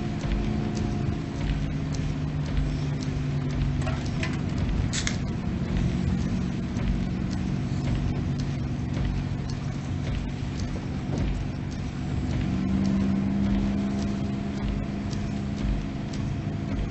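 Car engine running with road noise while driving, heard from inside the car's cabin.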